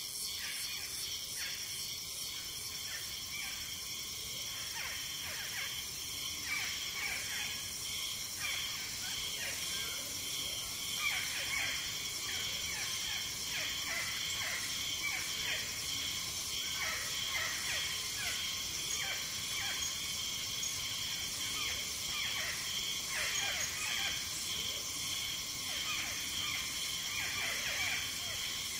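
Tropical forest ambience: a steady, high insect chorus with cicadas in it, with a pulsing buzz. From about eight seconds in, many short bird calls falling in pitch come thick and fast over it.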